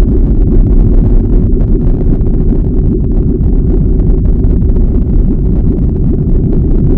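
Loud, steady, deep rumbling noise with no pitch, holding even throughout.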